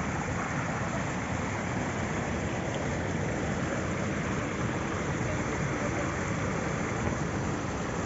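Kivach waterfall on the Suna river: a steady rush of falling water that keeps an even level throughout.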